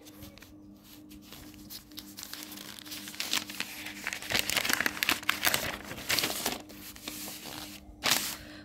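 Paper pages of a notebook rustling as they are handled and turned. The rustle builds a few seconds in, is loudest in the middle, and ends with one short sharp swish near the end.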